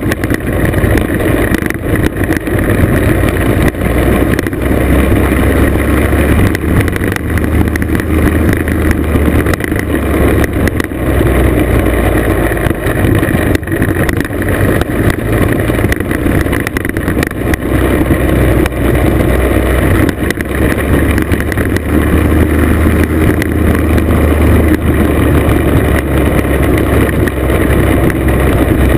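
Classic motor scooter's engine running steadily as it rides along a gravel road, over a heavy low rumble.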